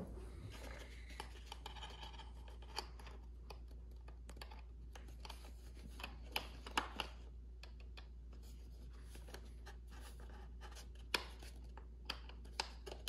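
Faint scattered clicks and scraping of a small Allen key being probed at the nose-gear set-screw collar inside a foam model jet's nose, the 5/64-inch key proving too big to seat. A few sharper ticks come around seven seconds in and again near the end, over a low steady hum.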